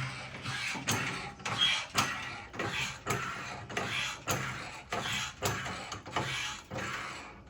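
A jack being pumped to lift the finish mower: its handle clunks in regular pairs about once a second, a ratchety mechanical clicking with each stroke.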